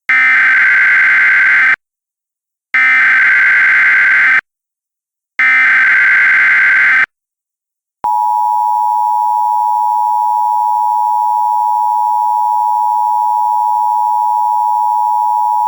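Emergency Alert System tones: three identical bursts of SAME header data, each under two seconds with about a second's gap between them. About eight seconds in comes the steady two-tone EAS attention signal.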